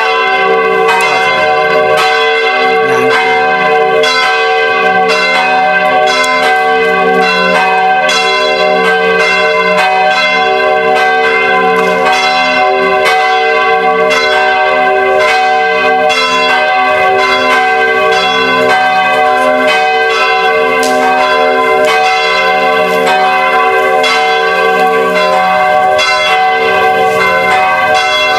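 Several church bells pealing together, struck in quick, frequent succession so their ringing overlaps into a dense, continuous clangour.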